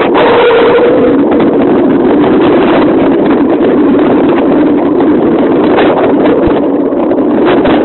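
Loud, steady wind rush over the microphone of a camera riding down a dirt forest trail on a mountain bike, mixed with the rumble of tyres on the ground and the rattle and knocks of the bike over bumps.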